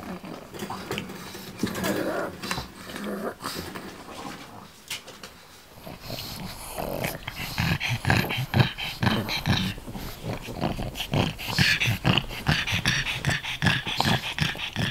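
A pug breathing noisily and grunting, the sounds turning into a quick rhythmic run of short breaths about halfway through.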